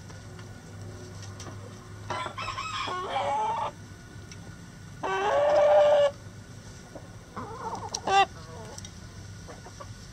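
A rooster crowing twice: a broken crow about two seconds in, then a louder crow with a long, held ending about five seconds in. A few shorter chicken calls and one sharp squawk follow near eight seconds.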